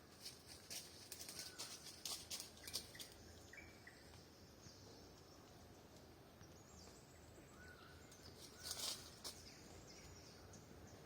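Wild birds giving short high chirps in two clusters, in the first three seconds and again around nine seconds in, with a few brief call notes over a faint outdoor background.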